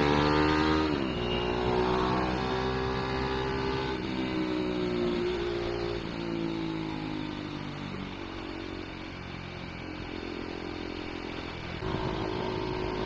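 KTM 390 Duke's single-cylinder engine running under way, its note dropping sharply about a second in, then holding steady and easing off past the middle before picking up again near the end.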